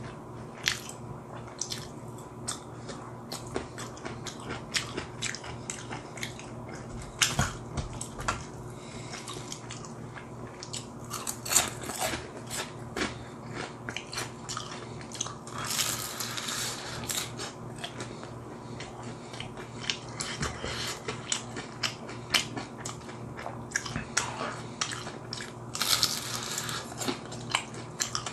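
Close-miked eating of crispy fried chicken: crackly crunching bites and wet chewing, with the loudest crunch bursts about halfway through and again near the end.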